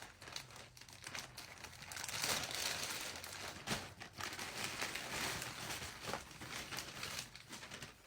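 Packaging crinkling and rustling in the hands as a gift package is handled and unwrapped, with sharp crackles here and there.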